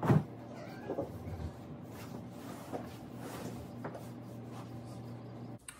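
Scattered soft knocks and rustling as things are handled and put away while a bedroom is tidied, over a steady low hum.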